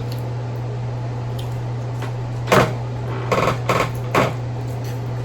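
A few short crackles and clicks, between about two and a half and four and a half seconds in, from seafood boil being handled and eaten, over a steady low hum.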